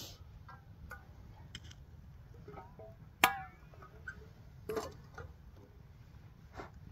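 Stainless steel kettle and its lid clinking against a steel fire grate: scattered light clinks and one sharp metallic clank about three seconds in that rings briefly, with a smaller knock a moment later.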